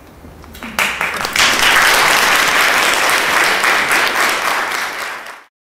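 Audience applauding, starting about a second in and quickly filling out, then cut off abruptly near the end.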